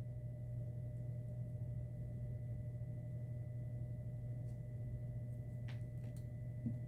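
Steady low electrical hum with a faint, thin high-pitched whine over it, and a couple of faint clicks near the end.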